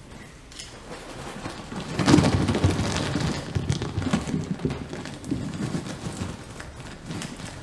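A rumbling, rain-like wash of noise with dense crackling, swelling suddenly about two seconds in and then slowly ebbing.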